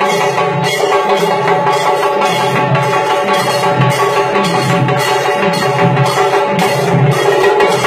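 Tassa drum ensemble playing loudly and without pause: fast drumming over deep bass-drum hits, with a regular beat about twice a second and sustained ringing tones underneath.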